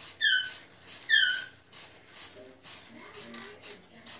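Short, high squeaks, each falling in pitch, twice in the first second and a half, then fainter. Between them come short hisses of an aerosol spray-paint can being tapped over the stencil.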